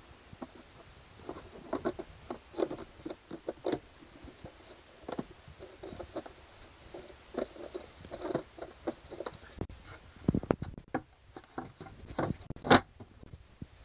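Hands working inside the compartment under a truck camper's dinette table, handling a flexible plastic duct hose and the parts around it: irregular clicks, knocks and rustles, a few low thuds, and one louder sharp knock near the end.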